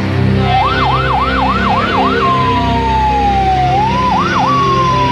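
Police car siren: about six quick rising-and-falling yelps, then a long falling wail, two more quick yelps near the end and another slow fall, over background music.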